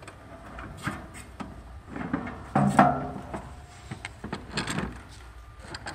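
Knocks, clicks and scrapes of a grey plastic control box being handled and lifted out of a metal barrier housing, the loudest a little under three seconds in.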